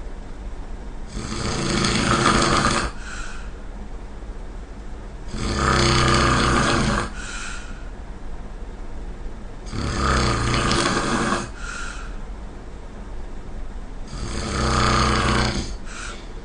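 A person snoring loudly and rhythmically: four long, rasping snores about four seconds apart, each followed by a short, fainter breath.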